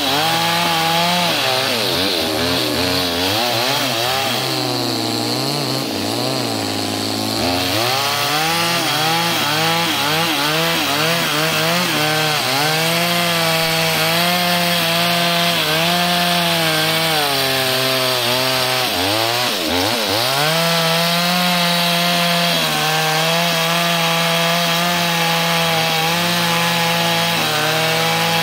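Two-stroke chainsaw ripping lengthwise along a very hard log, the engine running at high revs with its pitch wavering as the chain loads up. The pitch sags for a few seconds about a fifth of the way in and briefly again about two-thirds through, then recovers.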